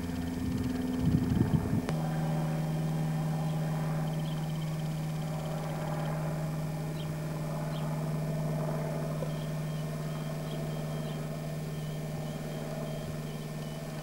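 Steady low hum of a vehicle engine running at low speed. About two seconds in, a click comes and the hum drops to a lower, steadier pitch.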